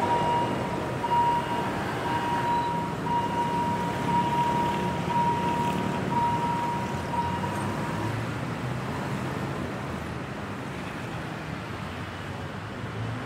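Railway level-crossing warning bell sounding a repeated electronic ding about once a second, stopping about eight seconds in, over steady city traffic.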